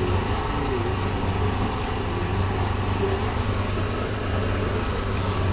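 A steady low mechanical hum with no breaks or changes.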